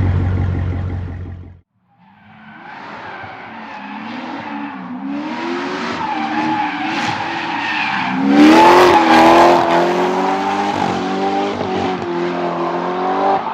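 Chevrolet Corvette's LS7 7.0-litre V8 running hard at high revs with the tyres squealing. The sound swells over several seconds and is loudest about eight seconds in. Before that, a deep engine rumble near the start cuts off abruptly.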